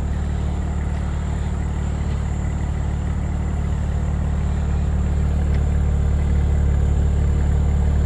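A 2022 Audi S4's turbocharged 3.0-litre V6 idling steadily through its exhaust, which has the factory sport resonator, with a deep, even drone. It grows slightly louder about five seconds in.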